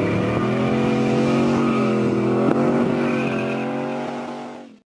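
Pickup truck driving past under acceleration. Its engine note climbs at first, then holds fairly steady with small dips, and cuts off abruptly just before the end.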